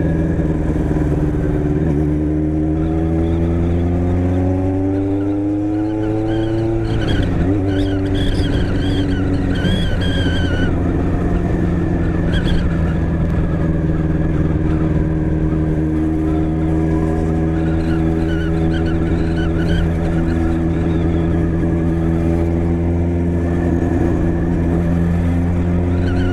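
Motorcycle engine running while riding. It rises in pitch as it accelerates, dips sharply about seven seconds in as at a gear change, then holds a steady pitch for the rest.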